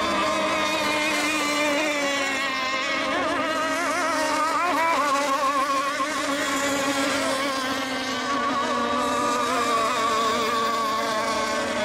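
Engines of several radio-controlled racing boats buzzing together on the course, each at its own pitch, the pitches wavering up and down a little as they run.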